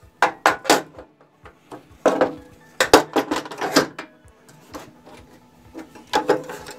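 A metal rail and a stop block knocking and sliding on the aluminium table of a Bosch PTS 10 table saw, which is switched off. Sharp clacks, some ringing briefly, come in clusters: three quick ones at the start, a run in the middle and more near the end.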